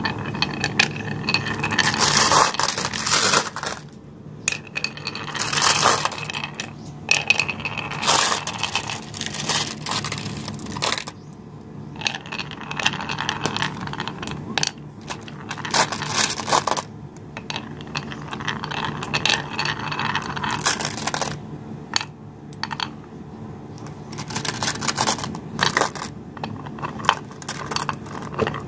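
Glass marbles rolling one after another down a wavy groove carved in a wooden board, a rolling rumble on the wood as each swings through the bends, then sharp glassy clicks as it knocks into the marbles piled at the bottom. The runs come one after another with short pauses between them.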